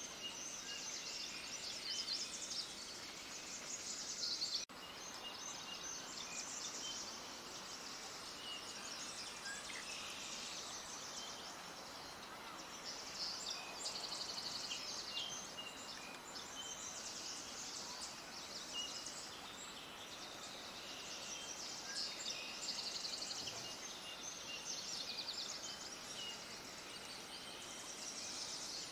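A chorus of many small songbirds chirping and trilling without pause, their calls high and overlapping, over a soft background hiss. The sound breaks off for an instant about five seconds in.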